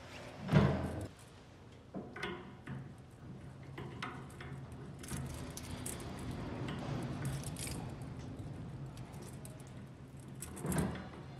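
Chrome-plated faucet parts and the flexible metal spray hose clinking and rattling as the hose's hex-nut fitting is handled and threaded onto the faucet riser. A louder metal clank comes about half a second in and another near the end, with light clicks between.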